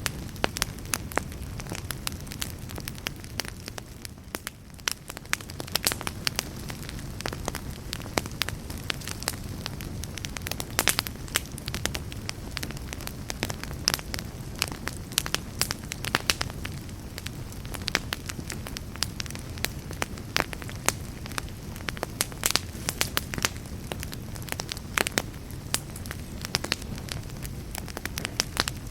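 Campfire burning, with a steady low rumble and frequent sharp, irregular pops and crackles of burning wood.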